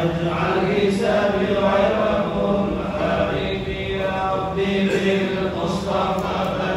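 A congregation chanting an Arabic devotional recitation together in unison, a steady melodic chant of many voices.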